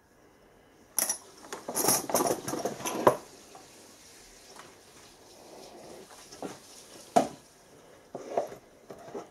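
Steel twist drills clinking against each other as they are handled and laid back in a drawer of a wooden engineer's tool chest, a dense run of metallic clinks lasting about two seconds. Then quieter handling, and a few sharp knocks near the end as a wooden drawer is shut and another pulled open.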